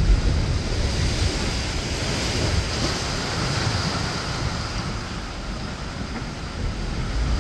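Choppy inlet water and surf washing steadily, with wind rumbling on the microphone.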